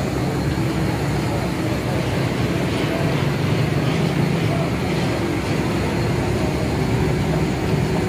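Busy roadside food-stall ambience: a steady rumble and hiss with indistinct background voices.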